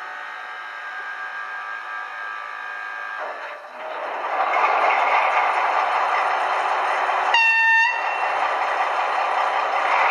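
Sound decoder of a Piko H0 V 211 model diesel locomotive playing through its small loudspeaker: the diesel engine sound idles, then grows much louder about three to four seconds in as the locomotive gets ready to pull away. One short horn blast sounds about seven and a half seconds in.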